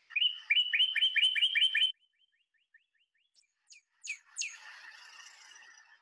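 Recorded song of a backyard songbird: a fast run of about eight repeated slurred notes, roughly five a second, over the first two seconds. Then fainter scattered notes, two sharp falling notes about four seconds in, and a softer jumble of calls.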